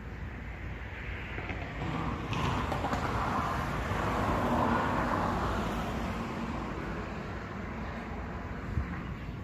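A car driving past on the street, growing louder to a peak about halfway through and then fading away, over a steady low background rumble.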